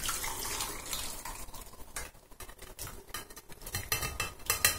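Chicken broth poured from a steel saucepan through a wire-mesh strainer into a bowl, the pouring trickle fading over the first second or so. Near the end come a few short knocks and clinks as the boiled carrot, onion and chicken tip into the strainer against the pot rim.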